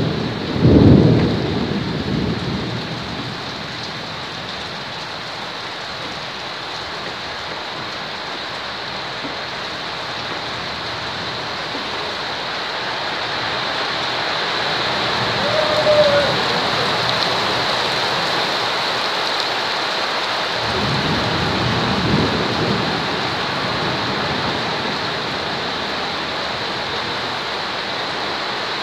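Steady heavy rain falling, with two low rolls of thunder: one about a second in and a longer one about twenty seconds later.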